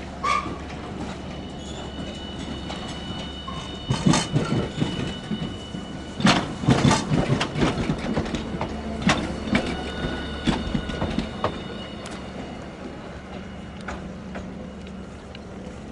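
Hiroshima Electric Railway streetcar rolling slowly over track joints and points, with a steady low hum under it. A burst of knocks comes about four seconds in and a longer clatter follows between six and nine seconds. Thin high wheel-squeal tones appear now and then.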